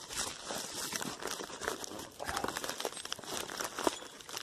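Crackly rustling and crinkling close to the microphone: handling noise as the phone is moved about.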